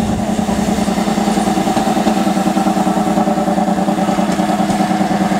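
ČD class 842 diesel railcar's engine running steadily as the railcar draws into the station, a loud, even drone with a fast pulse.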